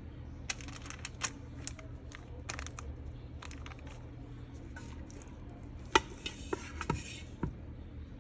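Kitchen handling noises while laying parchment paper and pork into an air fryer basket: scattered light clicks and taps, the sharpest about six seconds in, and a brief paper rustle just after, over a steady low hum.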